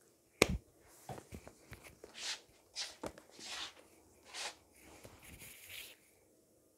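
Handling noise from the recording camera being picked up and moved: a sharp knock about half a second in, a few small clicks, then a series of short rustling, rubbing swishes.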